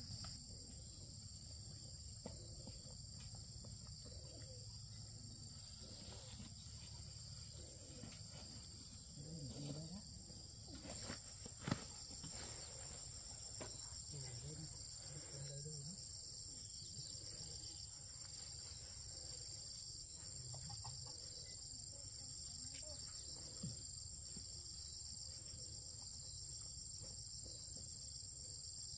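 Steady, high-pitched chorus of insects, shrill and unbroken, with one sharp knock about twelve seconds in.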